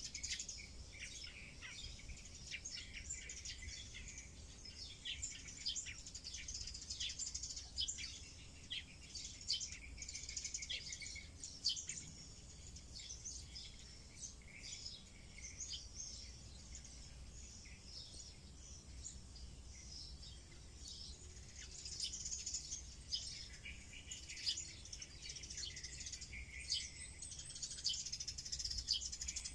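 Wild birds chirping and calling in the background: many short, high calls repeating throughout.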